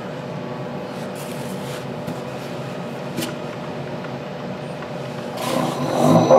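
Wood lathe running steadily with a large basswood platter spinning. About five seconds in, a 5/8-inch gouge meets the platter face and a louder cutting sound swells up as it takes the wood down.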